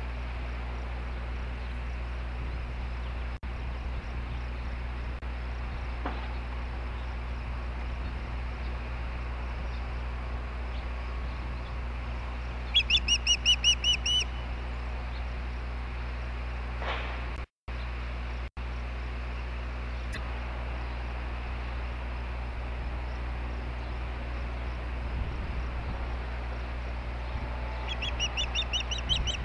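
Osprey calling: a quick run of about seven sharp, high chirps about halfway through, then another run of chirps near the end.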